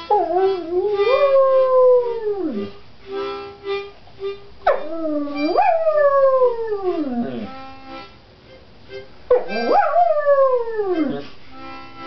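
Dog howling along to music: three long howls, each rising and then sliding down in pitch at the end, over steady notes from an instrument.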